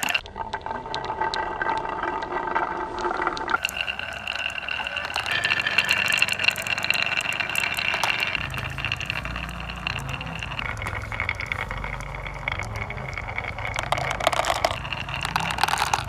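Marbles rolling down the grooved wooden curves of a HABA marble slope: a continuous rolling rumble with many small clicks as the marbles knock against one another and the wood. A deeper rumble joins about halfway through.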